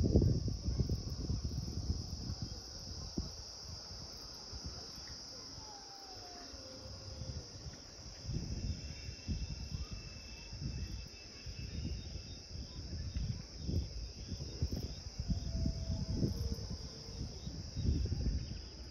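A steady, high-pitched chorus of insects trilling without pause, with uneven low rumbles of wind on the microphone that are strongest at the start and again near the end.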